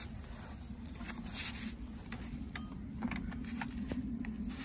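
Faint handling noise: a few light clicks and rustles of gloved hands and tools on the engine bolts, over a low steady rumble.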